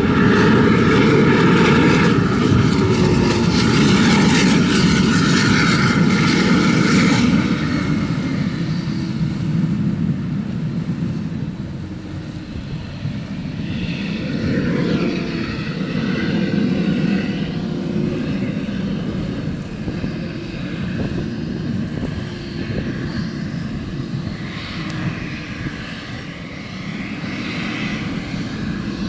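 Jet engine of a marathon jetboat running flat out across the water, loud at first with a thin high whine on top. After about eight seconds it fades, then swells and falls again as the boat runs further off.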